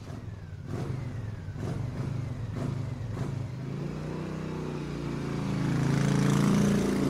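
Motor-vehicle engine running and revving, its pitch and loudness climbing through the second half.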